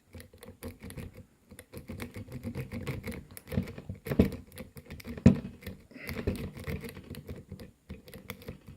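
Lock pick rake worked in and out of a Tri-Circle 264 padlock's keyway: a rapid, irregular clicking and scraping of the pins, with a couple of louder knocks about four and five seconds in.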